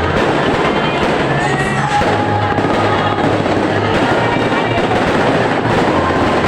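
A New Year fireworks display going off continuously: dense, rapid bangs and crackling, with music playing underneath.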